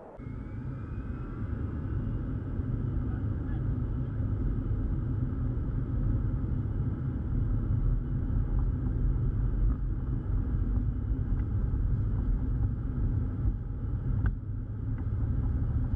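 Airplane engine noise: a steady heavy low rumble with a faint high whine that rises in pitch at the start, growing louder over the first few seconds and then holding steady.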